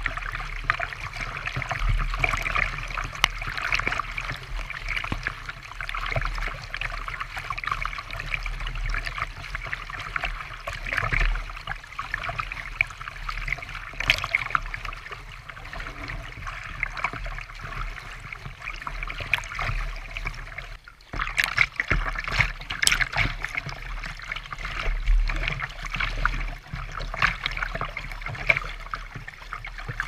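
Water lapping and splashing against a kayak's hull, close to the bow. A short break about two-thirds of the way through, then rougher, busier splashing through rapids.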